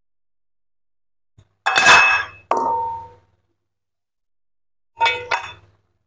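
Metal kitchenware clanging: two ringing clangs about two seconds in, then two more about five seconds in, each leaving a short metallic ring.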